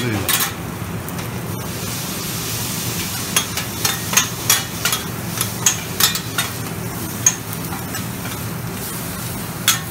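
Metal spatulas scraping and clacking on a flat-top griddle as meat and vegetables sizzle, with sharp strikes coming quickly in the middle of the stretch. A steady low hum runs underneath.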